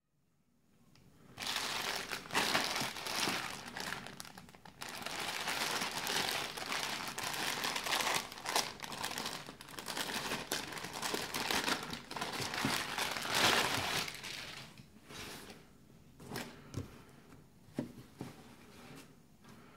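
Clear plastic bag crinkling loudly and continuously as hands open it and pull out a folded T-shirt, starting about a second and a half in and dying down after about fifteen seconds. It gives way to quieter handling with a few soft taps near the end.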